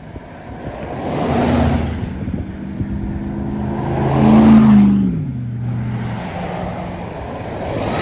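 Road vehicles passing close by one after another: a rush of tyre and air noise swells and fades three times, about a second and a half in, around the middle, and again at the end. An engine hum is heard under the middle pass and drops in pitch as that vehicle goes by.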